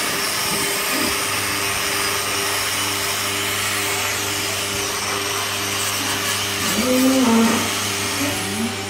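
Hand-held electric angle grinder with a hoof-trimming disc running steadily against a cow's hoof, its high whine wavering slightly as it is worked over the horn, with a steady low hum beneath. A short low call rises over it near the end.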